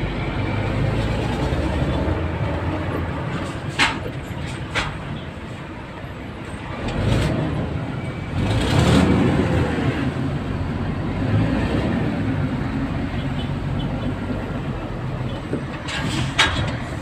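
Road traffic heard from inside a vehicle's cab in a slow jam: a steady low engine rumble. The rumble grows louder for a couple of seconds around the middle, and a few sharp clicks come about four seconds in and again near the end.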